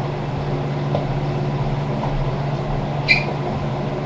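A steady low mechanical hum over a background hiss, with one short click about three seconds in.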